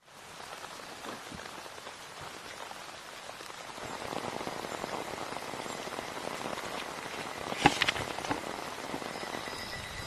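Heavy rain falling steadily, with a few sharp taps or knocks about three-quarters of the way through.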